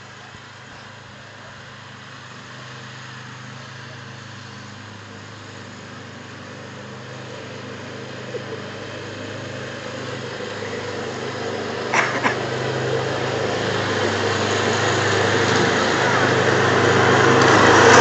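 Small engine of a ride-on lawn tractor running steadily, growing louder as the tractor drives up close. Two sharp knocks come about two-thirds of the way through.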